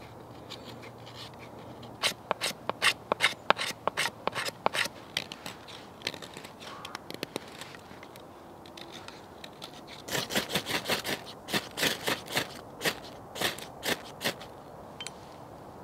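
A knife blade scraping thin curls off a stick of resinous pine fatwood, a short stroke about three times a second. Later a faster run of scrapes as a ferro rod is struck over the shavings to light them.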